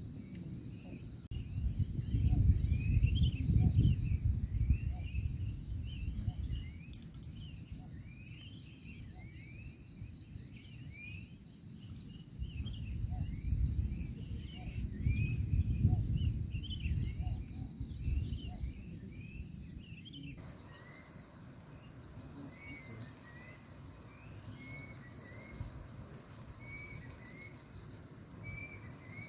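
Outdoor chorus of insects trilling in steady, pulsing high tones, with birds chirping throughout. Wind buffets the microphone in two gusts, early and again midway. About two-thirds of the way through, the insect sound changes abruptly.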